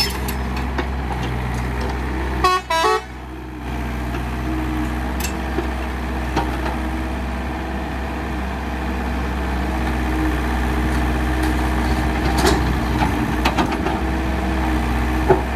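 Heavy diesel engine of an excavator or dump truck running steadily, with a short horn toot about two and a half seconds in and a few knocks later on.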